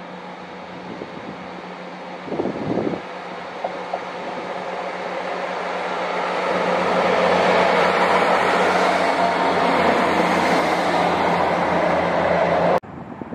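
Northern Class 158 diesel multiple unit approaching and running past, its diesel engine hum and rail noise building steadily to a loud peak, then cutting off suddenly near the end. A brief loud burst about two seconds in.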